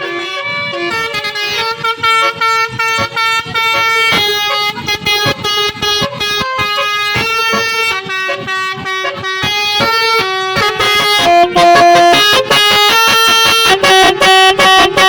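Basuri musical bus air horn playing a telolet melody: a long run of loud, stepping horn notes that gets louder for the last few seconds.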